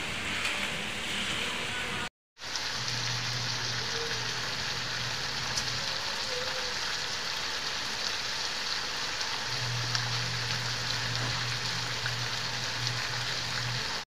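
Pork belly slices sizzling in oil on a round nonstick griddle pan over a gas stove, a steady frying hiss. The sound drops out briefly about two seconds in, and a low hum comes and goes under the sizzle.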